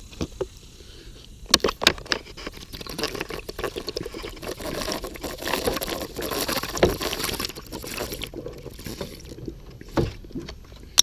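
Broken window glass being swept and scraped up: a dense run of small tinkling clicks and scratching that builds over several seconds, then thins out, with a single knock near the end.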